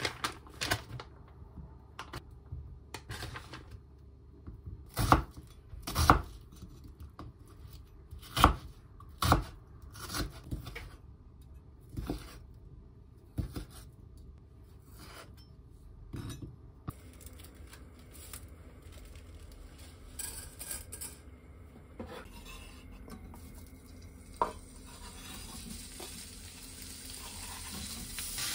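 A kitchen knife slicing onion and sausage on a wooden cutting board: a dozen or so sharp, irregular chopping knocks spread over the first half. Then food frying in a pan, its sizzle growing steadily louder towards the end as it is stirred.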